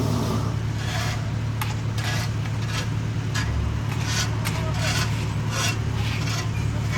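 Heavy paving equipment's engine running steadily with a low hum, while hand tools scrape across fresh asphalt in short repeated strokes, about one or two a second.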